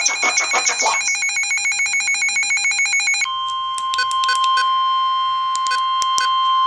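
Electronic emergency alert tones: a rapid pulsing ringing alert that stops about a second in, then a buzzy steady tone, then just after three seconds the steady 1050 Hz warning alarm tone of NOAA Weather Radio, which signals that a warning message follows. A few short beeps sound over the steady tone between about four and six seconds in.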